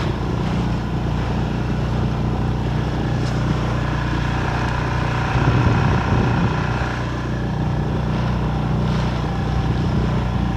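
Small 6 hp outboard motor running at a steady speed, driving an inflatable dinghy, with wind on the microphone and water rushing past the hull.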